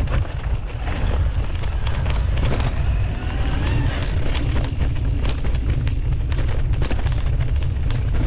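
Heavy wind rumble on an action camera's microphone as a mountain bike is ridden along a rough trail, with a steady stream of clicks and rattles from the tyres and bike over the ground.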